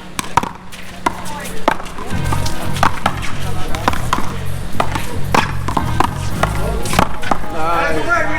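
A one-wall paddleball rally: a quick, irregular series of sharp smacks as the ball is struck by paddles and hits the wall. Background music plays under it from about two seconds in.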